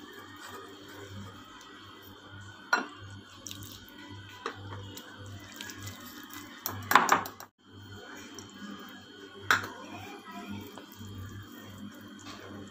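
Metal wire whisk stirring wet cake batter in a glass bowl: a continuous wet, sloshing scrape with a few sharper clinks of the whisk against the glass, the loudest about seven seconds in. Faint background music runs underneath.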